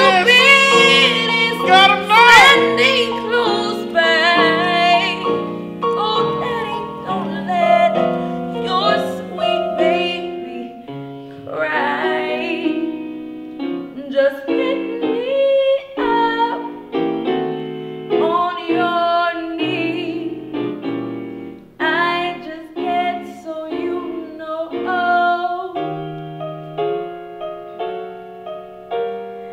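A woman singing a slow song with grand piano accompaniment; her held notes waver with vibrato near the start.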